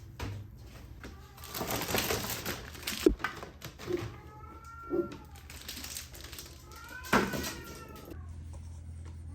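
A cat meowing twice, each meow rising and then falling in pitch, after a few seconds of rustling and sharp clicks.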